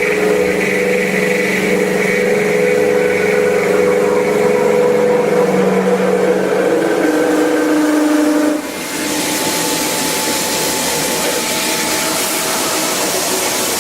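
CNC drilling-milling machine running, its drives giving several steady tones that shift in pitch a few times. About nine seconds in the tones drop back and a steady hiss takes over.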